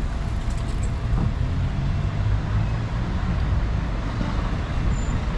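Road traffic, with cars driving past on a city street: a steady, low noise without breaks.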